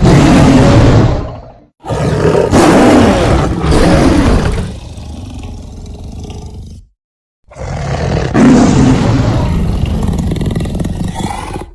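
Big-cat roar sound effects, presented as a saber-toothed leopard, in three separate roars cut apart by moments of dead silence. First a short roar of under two seconds, then a longer one that drops to a quieter growling tail, then a third lasting about four seconds.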